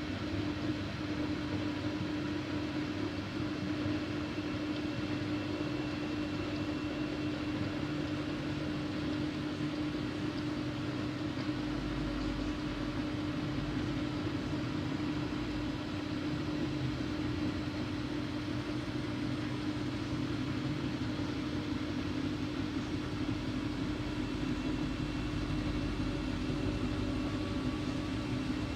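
Siemens Siwamat iQ 716 washing machine running, a steady machine hum with one constant tone over a low rumble.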